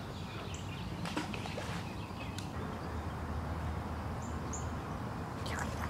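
Outdoor ambience: a steady low rumble with a few faint, short, high bird chirps, one about half a second in and two more around four seconds in.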